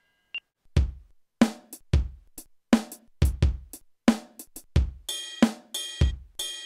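Sampled drum sounds from a toy roll-up electronic drum kit, struck with wooden sticks on its rubber pads: a simple beat of kick, snare and hi-hat hits at about two to three a second. From about five seconds in, ringing cymbal hits join the beat.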